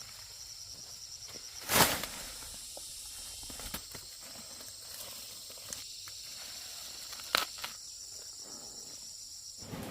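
Steady, fast-pulsing high chirring of insects, with a short loud rustling thump about two seconds in and a sharp click near the end.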